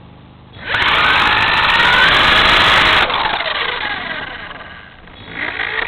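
Electric motor and rotor of a radio-controlled model helicopter spooling up suddenly with a whine, running at high power, then winding down with a falling whine before spooling up again near the end.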